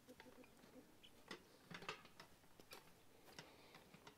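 Near silence, with faint, irregular ticks and clicks every half second or so.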